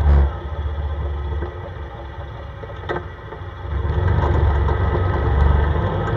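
CFMoto ATV engine running while the machine drives over a snowy road, a steady low rumble that eases off for a couple of seconds in the middle and then picks up again. A thump comes right at the start and a short knock about three seconds in, typical of the machine jolting over rough snow.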